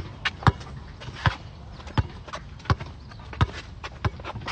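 A basketball being dribbled on an outdoor asphalt court: sharp bounces, roughly one every 0.7 seconds, with a couple of quicker ones in between.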